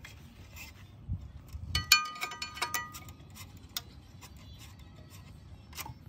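A couple of dull knocks, then a quick run of sharp clicks and light ringing clinks about two seconds in, from hands working a cap and filter housing in a JCB 3DX backhoe loader's engine bay. A few single clicks follow.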